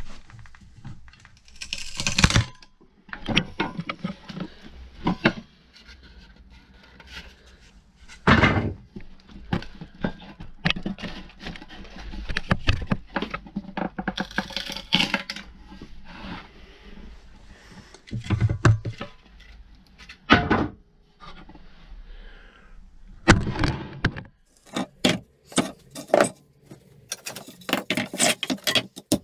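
Pallet boards being levered off with a long-handled pallet-breaker bar: repeated loud wooden cracks and creaks as the boards split and come free, with knocks, scraping and clatter of loose boards and metal.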